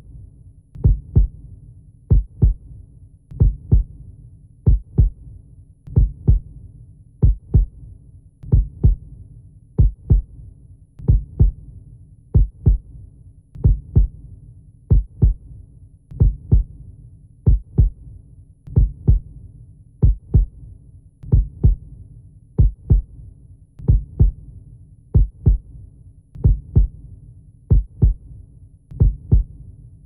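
Slow heartbeat: a double thump about every second and a quarter, evenly paced, over a steady low hum.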